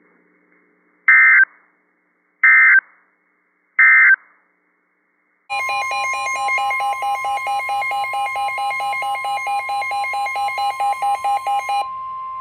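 Three short NOAA Weather Radio SAME data bursts, the warbling digital alert code, sent in quick succession. About five seconds in, the steady 1050 Hz weather radio warning alarm tone starts, with a rapidly pulsing electronic alarm beep over it. The beeping stops near the end while the steady tone carries on.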